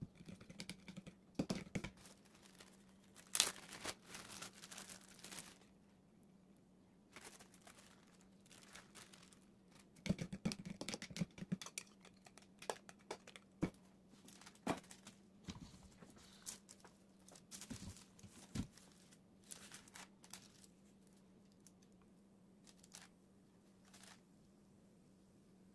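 Quiet kitchen handling sounds: a fork clicking rapidly against a plastic bowl in short spells as eggs are whisked, then scattered taps, scrapes and paper and plastic crinkling as pie crust is handled and pressed into the pie maker. A faint steady hum runs underneath, and the sounds thin out near the end.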